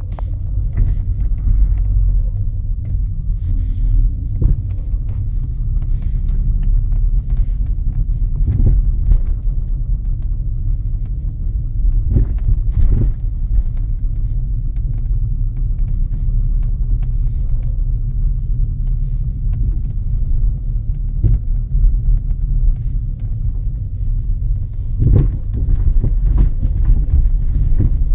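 Irregular sharp knocks from a Mitsubishi Galant VIII's curved suspension arm, over the steady low rumble of the car on the move. The knock is the sign of play in that arm.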